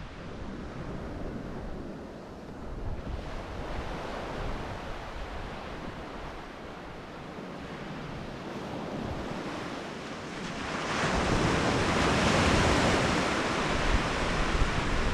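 Surf washing onto a sand beach. About two-thirds of the way in, a wave breaks and rushes in louder. Wind rumbles on the microphone at times.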